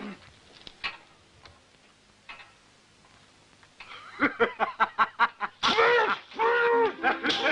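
A man's loud laughter, coming in a quick run of short bursts about halfway through, then two longer drawn-out laughs. Before it there are only a few faint clicks.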